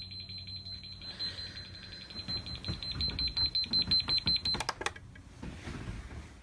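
High-pitched electronic alarm beeping in rapid, even pulses, then cut off about four and a half seconds in. Knocks and rustle of the phone being handled run under it.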